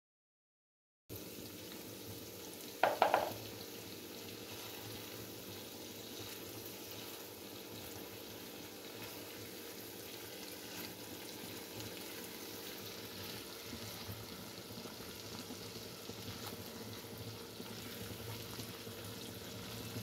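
Mince kababs sizzling in masala gravy in a karahi, a steady frying hiss that starts about a second in, while a spatula turns them. A brief louder clink about three seconds in.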